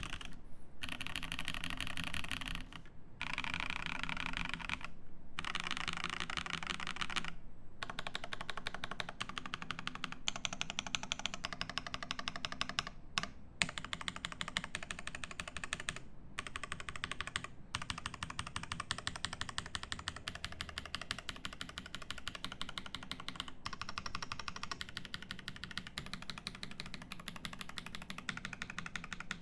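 Fast, continuous typing on a Cyberboard mechanical keyboard with lubed Feker Holy Panda tactile switches and GMK keycaps on a polycarbonate plate. The keystrokes come in bursts broken by short pauses for the first several seconds, then run on without a break.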